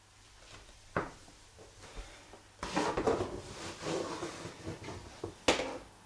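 Indoor handling noises: a single click about a second in, a couple of seconds of rustling and scraping, then a sharp knock near the end.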